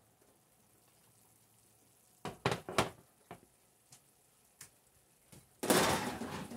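Baking dish set down on a glass-top electric stove: three sharp clacks close together, then a few lighter taps. A louder rattling clatter lasting about a second follows near the end, from the oven being closed up.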